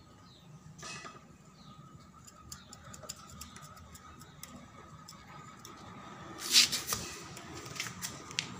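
Screwdriver turning screws out of the metal casing of an amplifier chassis: faint scattered clicks and ticks, then a louder scrape about six and a half seconds in, followed by a few sharper clicks.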